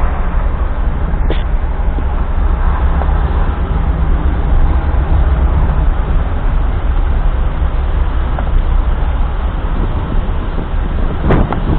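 A car driving, its road and engine noise a steady low rumble. There is a short click about a second in and a couple of brief, sharper sounds near the end.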